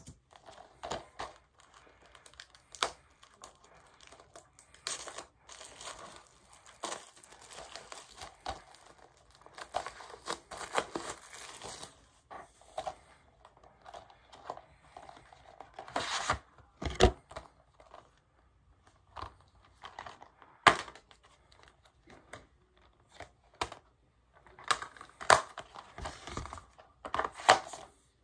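Crinkling and tearing of the plastic wrap on a DVD case, with scattered clicks and taps as the plastic cases are handled, in irregular bursts.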